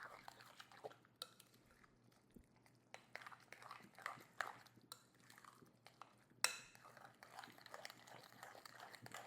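Faint scattered clinks and scrapes of a spoon against a bowl while the dip is handled, with one sharper click about six and a half seconds in.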